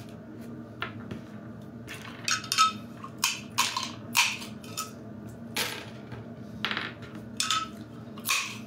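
Hazelnuts being cracked open by hand with a small nut opener: an irregular string of sharp cracks and clicks, about a dozen, some with a short ringing tone.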